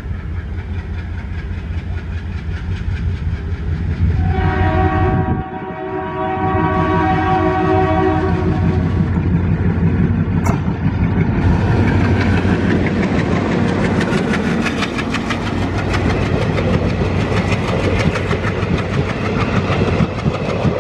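Indian Railways WDG-3A diesel locomotive with an ALCO 16-cylinder engine, approaching under power with a deep engine rumble, sounds its horn in a long blast from about four seconds in. From about twelve seconds in, the clickety-clack of the passenger coaches' wheels over the rail joints takes over and grows louder as the train passes.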